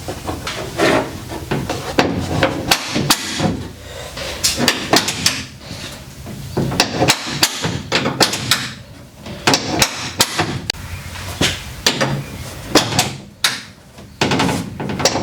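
Irregular hammering and knocking in the shop, with many sharp strikes in quick, uneven succession.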